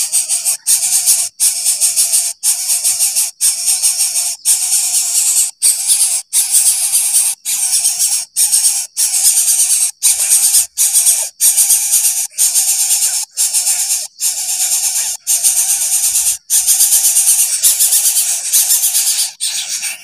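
Greater coucal nestling begging with a loud, rapid hissing buzz. The buzz breaks off sharply every half second to a second as the chick is fed a lizard with its beak wide open.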